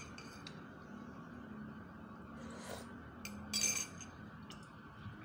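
Metal spoon and fork clinking against a ceramic plate while eating: a few light taps, then a louder ringing clink about three and a half seconds in.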